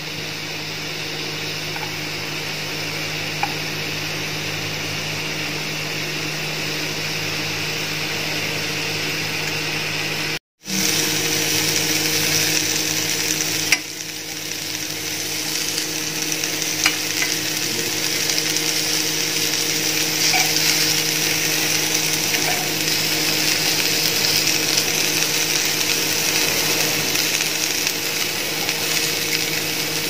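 Paneer cubes with capsicum and onion pieces sizzling in oil on a hot grill pan, with a few light spatula scrapes as the pieces are turned and a steady low hum underneath. The sound drops out completely for a moment about ten seconds in.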